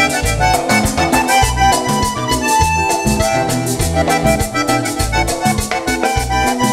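Live Panamanian típico band playing an instrumental passage without vocals: accordion melody over bass, congas and drum kit, with a steady beat.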